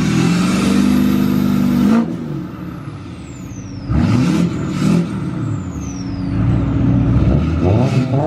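Turbocharged car engine revved in blips through a freshly welded custom exhaust. A long rev with the turbo's whistle climbing is cut off about two seconds in, and the turbo's whistle falls away after each lift. Two quick blips come at about four and five seconds, then a longer rev near the end.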